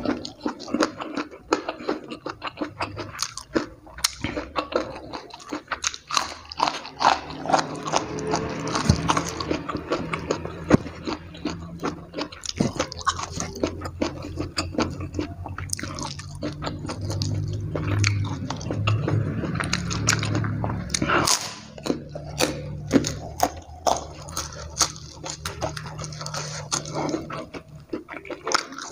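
Close-up chewing and crunching of raw green eggplant and crispy fried egg with rice, eaten by hand, with many sharp crunchy bites and wet mouth sounds. A low steady hum runs underneath through the middle and later part.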